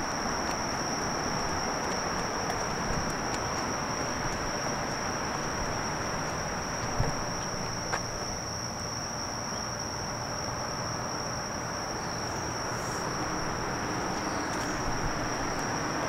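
Insects in the woods: a steady high-pitched drone held at one pitch, over a constant rustling hiss, with a soft knock about seven seconds in.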